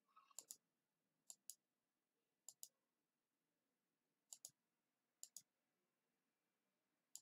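Faint computer mouse clicks, each a quick press-and-release pair. Five pairs come a second or two apart, and one more click falls near the end.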